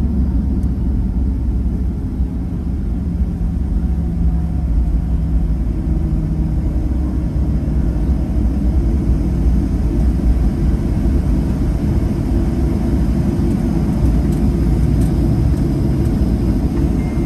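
Cabin noise of a Boeing 737-800 rolling on the runway after landing: a steady low rumble of its CFM56 engines and landing gear, heard from a window seat over the wing.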